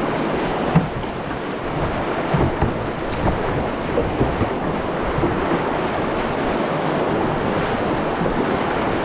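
Whitewater rapids rushing loudly around a canoe as it runs a ledge, with occasional sharper splashes of waves against the boat.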